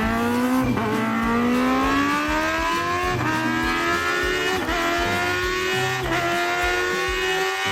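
Racing motorbike engine sound, revving and climbing slowly in pitch, broken by short breaks like gear changes about every one and a half seconds.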